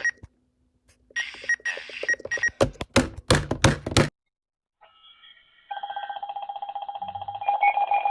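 Emergency alert signal tones: short buzzing data-like bursts, then a quick run of sharp clicks, and after a brief pause a pulsing multi-tone alert signal starts about two-thirds of the way in and grows louder.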